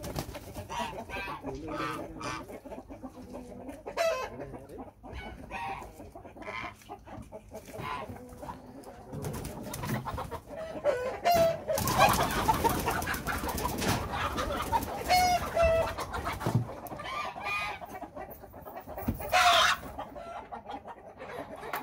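Domestic chickens clucking and calling in a coop while one is caught by hand, with a louder, busier burst of calls about halfway through and a loud call near the end.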